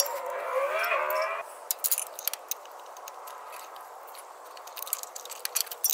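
A short stretch of music-like pitched sound cuts off about a second and a half in. Then come scattered light clicks and clinks from hand work on the car's underside, as the 10 mm bolts of the PCV breather box are being taken out.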